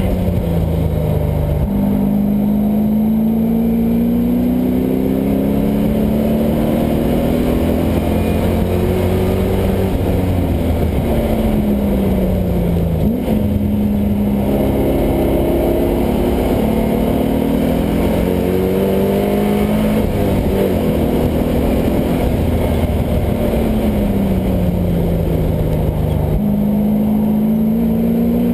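LS1 V8 engine of a swapped Mazda Miata driven hard on track, its pitch climbing under acceleration and falling as it slows, with sudden pitch changes a few times.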